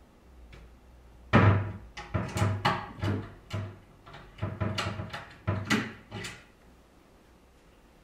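Wooden sideboard cabinet doors with a key lock being unlocked, opened and shut: a run of about a dozen sharp, irregular wooden knocks and clacks from about a second in until about six seconds in, the first the loudest.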